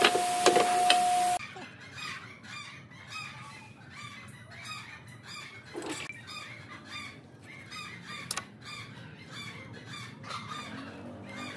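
A power drill running with a steady whine while driving a screw into timber, with a few sharp clicks, cut off abruptly about a second and a half in. After that, a much quieter background of short, rapidly repeated bird calls.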